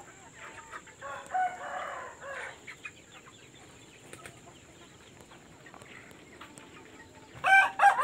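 Free-ranging chickens: a rooster crows about a second in, a drawn-out call of about a second and a half, with scattered clucking after it. A second crow, much louder and closer, starts near the end.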